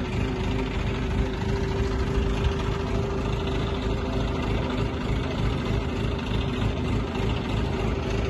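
Diesel engine of a Hydra mobile crane running steadily, with a constant hum over a low rumble, while its hook hangs on the cable over the wreck.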